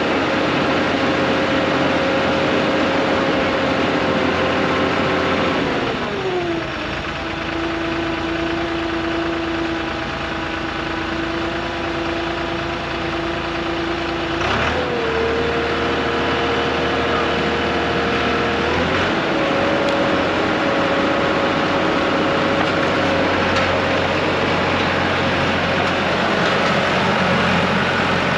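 Heavy diesel engine running steadily under load, its speed dropping about six seconds in, then rising again in two steps, around the middle and a few seconds later.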